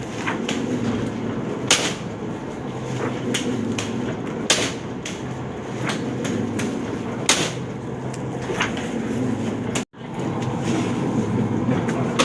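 Die-cutting press running with a steady mechanical hum and a sharp clack every few seconds as it cycles. The sound cuts out for a split second near the end.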